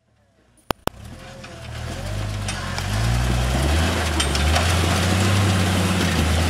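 Jeep engine running at low revs off-road, building up over the first few seconds as its note steps up, then holding a steady low drone. Two sharp clicks come just under a second in.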